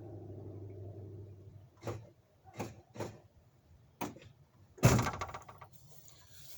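A steady low hum that stops less than two seconds in, then a few sharp clicks and one loud thunk about five seconds in, like a truck door being shut.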